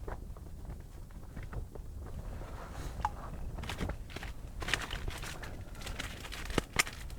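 Footsteps: irregular crunching steps, sparse at first and coming thicker from about halfway through, over a steady low rumble.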